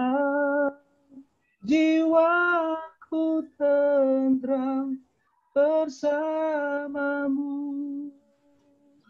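A single voice singing unaccompanied in short phrases of held notes with brief pauses between them, ending on a long held note that fades out near the end.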